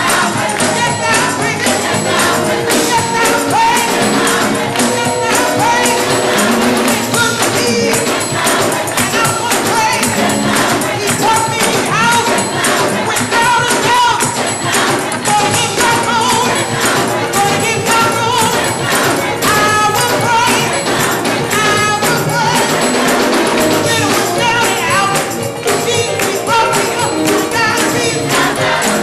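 Gospel music: a youth choir singing with band accompaniment and a rattling tambourine keeping a steady beat.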